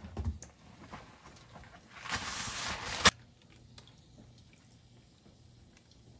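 Ring yeast doughnuts deep-frying in a shallow pan of oil, a faint steady bubbling hiss. About two seconds in, a louder hiss lasts about a second and ends in a sharp click, as the squares of cooking sheet are lifted out of the hot oil.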